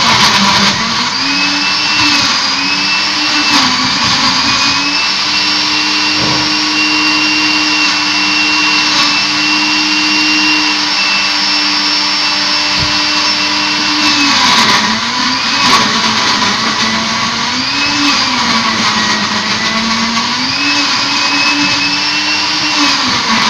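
Electric kitchen blender running at speed, blending coconut milk with ice cubes. The motor's pitch dips and recovers every second or two as the load shifts, holds steady for several seconds in the middle, then wavers again.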